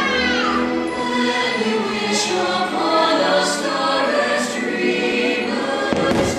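Fireworks show soundtrack: a choir singing over orchestral music, with a few short sharp sounds and a thump about six seconds in.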